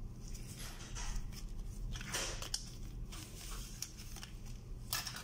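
Light handling noises: soft rustles and a few small clicks from gloved hands working around a metal jig on a bench, the loudest about two seconds in and again near the end, over a low steady hum.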